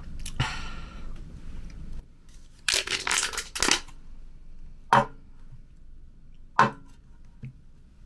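Empty aluminium drink can crushed by hand: a loud burst of crinkling, crackling metal about three seconds in, then single sharp cracks about five and six and a half seconds in. A soft rushing noise fills the first two seconds.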